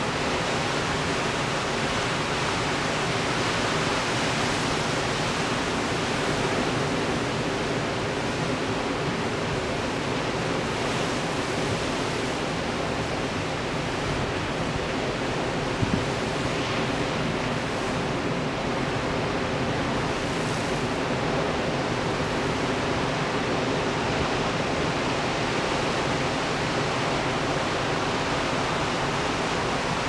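Heavy Pacific Ocean surf breaking over rocky shore, a steady unbroken rush of white water. A single short knock sounds about halfway through.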